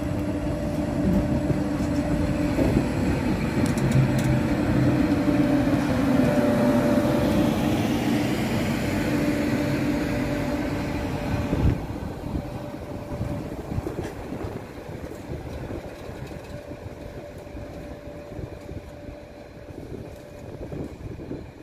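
A train passing: a rumble with a steady hum beneath it that builds to its loudest about six seconds in, drops suddenly about twelve seconds in, and then fades away.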